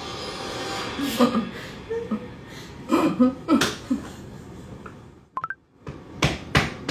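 A woman's stifled laughter behind her hand, in short breathy bursts with a few squeaks of voice, then a brief dropout and two sharp clicks near the end.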